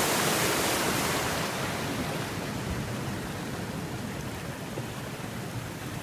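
White water rushing through the gate of a timber crib dam, a steady even rush that grows fainter and duller after a second or two.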